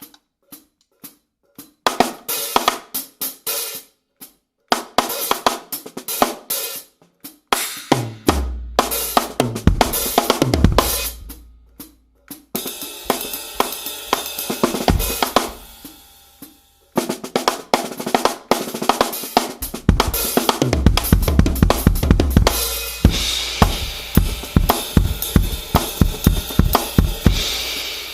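Tama acoustic drum kit played as a solo sound test: a few scattered strokes at first, then dense snare and tom strokes with deep, ringing bass drum and low tom hits, a stretch of washing cymbal, and busy playing heavy with cymbals near the end.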